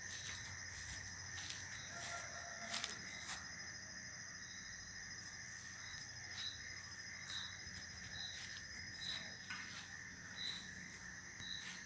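Crickets chirping: a steady high-pitched trill, with one short chirp repeating about once a second from about four seconds in. A few faint clicks come in the first few seconds.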